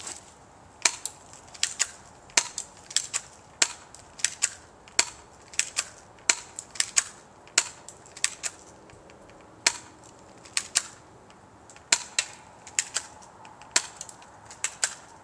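Airsoft pistol firing shot after shot: sharp snaps at an uneven pace, sometimes two or three in quick succession, with short pauses between.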